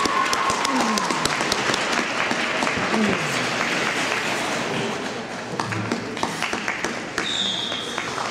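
Audience applauding, with dense clapping that thins out and gets quieter about five seconds in.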